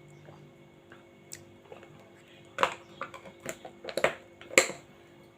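A metal spoon tapping and clicking against a glass jar as turnip-and-sugar cough syrup is spooned out: about five short, sharp clicks in the second half over a faint steady hum.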